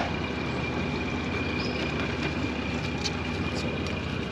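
Steady low mechanical hum with a thin, steady high whine above it, and a few faint ticks about three seconds in.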